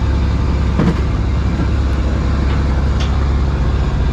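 Fishing trawler's engine running with a steady low drone. There is a short knock about a second in and a sharp click near three seconds.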